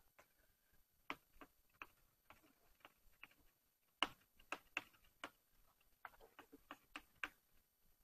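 Chalk tapping and clicking on a blackboard as an equation is written out stroke by stroke: faint, irregular clicks, thickest in the second half.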